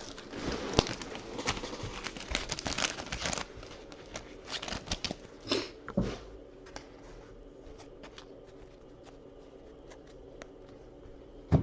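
Plastic packaging of trading card packs crinkling and tearing, with small clicks and knocks as it is handled. It thins out about six seconds in to a few faint clicks, with one sharp knock at the end.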